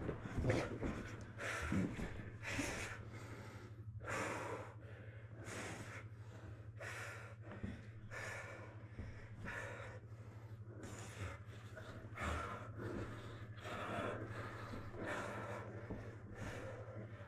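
Grapplers breathing hard and fast from exertion, about one loud breath a second, over a steady low hum.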